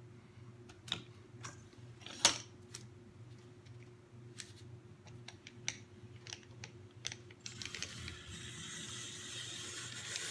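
Hand-cranked apple peeler-corer at work: scattered metal clicks and knocks as an apple is mounted and the crank is turned. From about three-quarters through comes a steady hiss as the blade shaves the peel off the turning apple.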